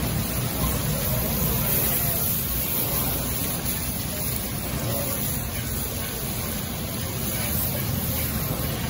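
Gas burners under woks running with a steady rushing noise, mixed with general street noise.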